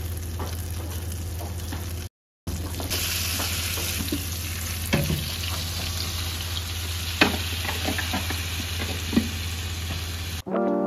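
Butter sizzling steadily in a hot frying pan as a roux is started, with a few light clicks about midway and near the end. The sound drops out briefly about two seconds in.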